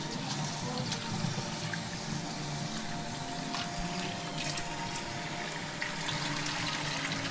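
Kitchen faucet running into a stainless steel bowl of long grain brown rice while a hand swirls the grains in the water to rinse them. Steady running water with a few small knocks and clinks.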